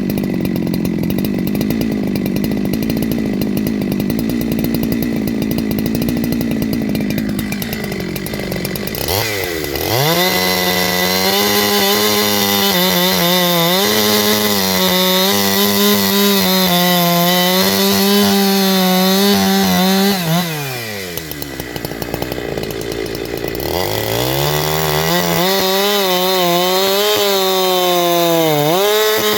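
Chainsaw fitted with a shotgun-style pipe muffler, running at a steady low speed and then revved up to full throttle with no load twice. It holds high revs for about ten seconds, drops back, then revs up again and holds to the end with a brief dip near the end. The owner judges it to be running lean on the high-speed jet with this muffler.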